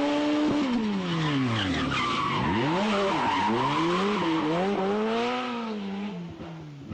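Rally car engine under hard driving: its pitch sinks over the first couple of seconds, then rises and drops again several times through gear changes and throttle lifts. Tyres skid and squeal through the middle of it.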